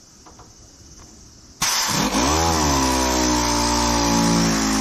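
Pneumatic double-action sander with #240 paper sanding body putty: it starts abruptly about a second and a half in with a rush of air hiss and a whine that dips and rises in pitch, then settles into a steady drone. Faint ticks before it starts.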